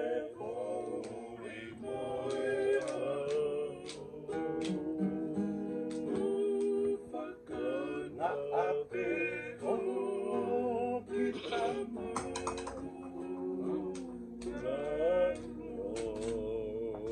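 Men singing a song together to strummed acoustic guitars and a ukulele.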